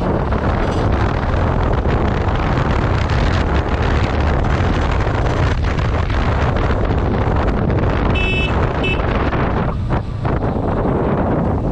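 Motorcycle running at road speed, its engine and road noise mixed with heavy wind on the microphone. A horn beeps twice briefly about eight seconds in.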